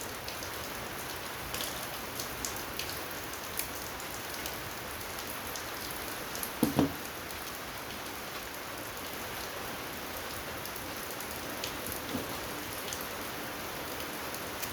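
Steady rain falling, with scattered light ticks and one brief louder clunk about seven seconds in.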